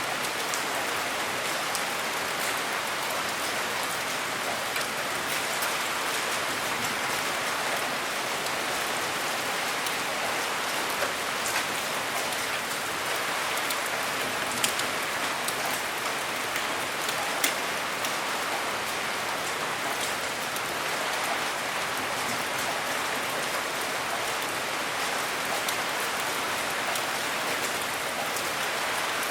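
Steady rain, an even hiss with scattered sharper drops ticking through it; a few louder drop hits stand out in the middle.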